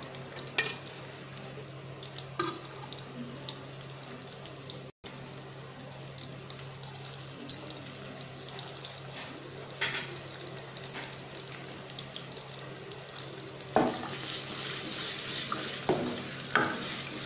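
Chopped onions frying gently in oil in an aluminium karahi: a soft, steady sizzle with a few light clicks of a utensil on the pan. Near the end a spatula stirs the onions and the sizzle grows louder.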